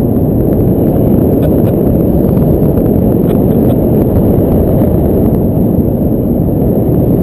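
Wind buffeting the camera microphone of a paraglider in flight: a loud, steady, low rushing rumble of airflow.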